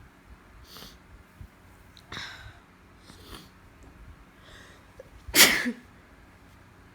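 A woman's stifled sneezes: a few small, muffled ones, then a louder sneeze a little over five seconds in. She is sneezing from allergies on top of a cold.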